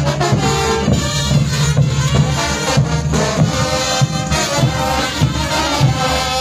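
Live brass band playing a morenada: trumpets and trombones carry the tune over bass drums and cymbals beating a steady rhythm.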